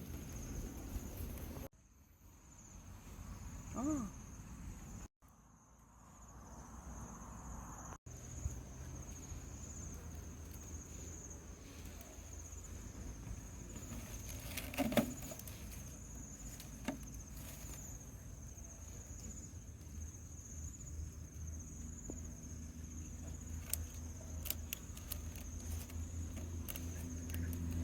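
Insects trilling steadily in a high, unbroken tone, crickets by the sound of it, with scattered light clicks and knocks and a brief squeak about four seconds in.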